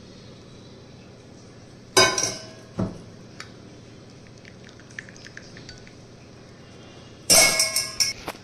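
Steel kitchenware clinking against glass while chai is strained into a glass mug: one loud ringing clink about two seconds in and a duller knock right after, a few light ticks, then a rattle of several quick clinks near the end.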